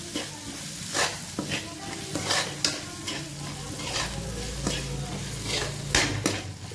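Diced potatoes sizzling as they fry in oil and spice paste in a metal kadhai, while a metal spatula stirs them and scrapes the pan in repeated sharp strokes.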